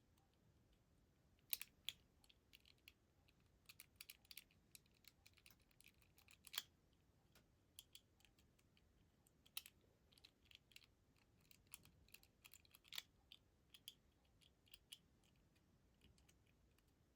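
Faint, irregular small clicks of a Master Lock 875 combination padlock's number wheels being turned and jiggled one at a time while the shackle is held under tension, feeling each wheel for movement to decode the combination. A few clicks stand out louder, about 1.5, 6.5, 9.5 and 13 seconds in.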